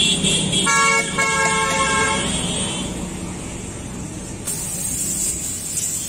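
Street traffic rumble with a vehicle horn sounding one steady note for about a second and a half, starting about a second in. Later a high hiss of a bun sizzling on the hot griddle.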